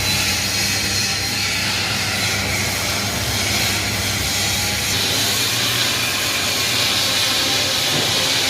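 TIG (argon gas-shielded) welding arc running steadily, a continuous hiss over a low hum.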